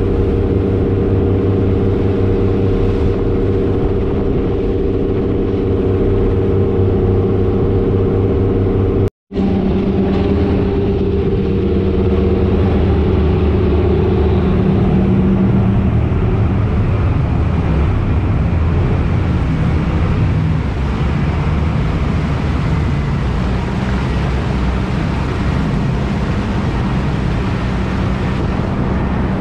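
A small passenger ferry's engine running steadily under way: a low drone over the rush of water from the wake. It drops out for a moment about nine seconds in, and afterwards the drone's pitch shifts slightly.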